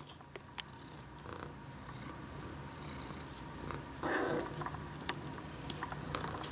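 A cat purring steadily, with a brief louder sound about four seconds in.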